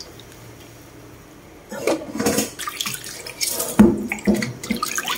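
Water sloshing and splashing in a stainless steel bowl as hands stir soaked rau tiến vua (dried celtuce stem strips) and lift them into a metal colander. It is quieter for the first second and a half, then splashes irregularly, with a couple of louder knocks against the metal a little before the end.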